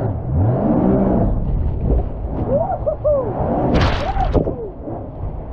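Personal watercraft engine revving up and down as it powers through whitewater rapids, over a steady rush of churning water. About four seconds in, a wave crashes over the rider and the camera in a brief loud splash.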